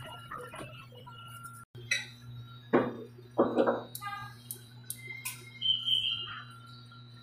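Cordless hair clipper running with a steady low hum as it trims the side of the head. Several sharp clicks and short clinks sound over it, the loudest about three seconds in.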